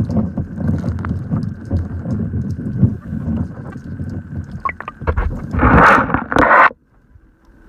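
Muffled water noise picked up by a submerged underwater camera: a low churning and gurgling with small knocks. It swells into a louder rush at about five and a half seconds, then cuts off abruptly about a second later.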